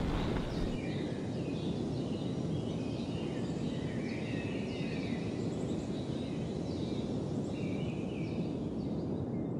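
Outdoor ambience: a steady low rush of noise with birds chirping now and then.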